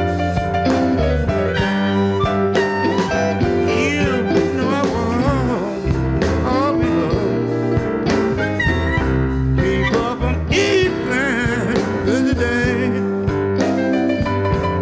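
Electric blues band playing live: an instrumental passage, with a lead line of bent, wavering notes over bass, drums and chords.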